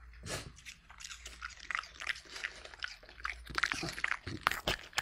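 A French bulldog biting and chewing apple: a quick, irregular run of crunches and mouth smacks, loudest near the end.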